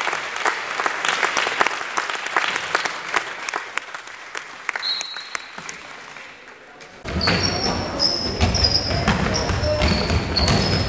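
Crowd applause in a gym, fading out over the first few seconds. About seven seconds in the sound changes abruptly to game play: a basketball bouncing on the court and short, high sneaker squeaks.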